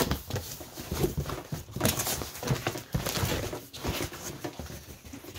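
Cardboard shipping box being opened by hand and its foam packing sheet handled: irregular rustling and scraping of cardboard with a few light knocks.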